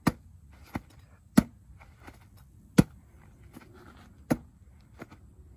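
A large knife driven hard, point-first, into a level IIIA Kevlar soft-armor vest lying on the ground. There are four sharp stabs, about one and a half seconds apart, with lighter knocks between them. The blade does not go through: the armor stops every stab.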